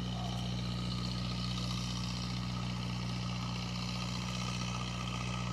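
A motor running steadily at idle: a constant low hum that does not change.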